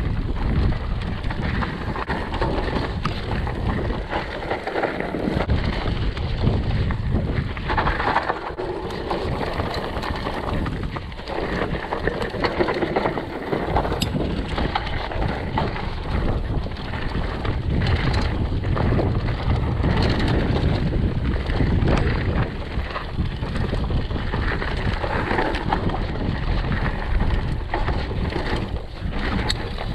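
Mountain bike descending a dirt trail at speed: tyres on dirt with the chain and bike rattling and knocking over bumps, and wind rushing on the microphone.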